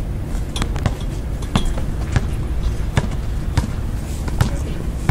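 Basketball bouncing on an outdoor concrete court: a series of sharp, irregularly spaced thuds over a steady low rumble.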